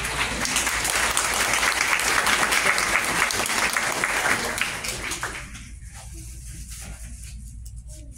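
Audience applauding: a dense patter of many hands clapping that fades away after about five seconds.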